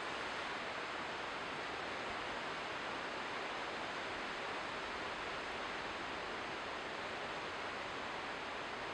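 Ocean surf heard as a steady, even rush, with no single wave breaks standing out.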